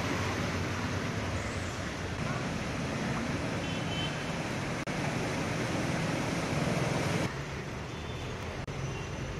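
Steady traffic noise from a flooded street, vehicles moving through water. About seven seconds in it drops in level and turns duller.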